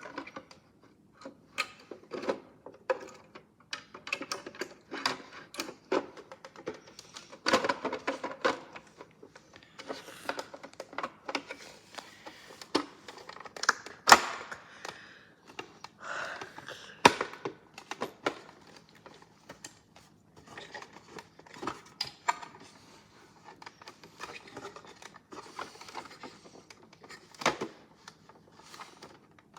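Irregular clicks, taps and rattles of the plastic parts of a toy washing machine being handled and worked on, with a sharp knock about halfway through.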